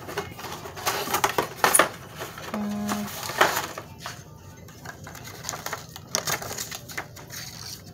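Rustling and clattering as a styling comb's box and paper insert are searched through, with sharp clicks and knocks. There is a brief low hum about two and a half seconds in.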